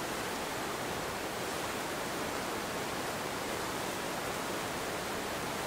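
Whitewater rapids rushing: a steady, even roar of churning water with no pauses or changes.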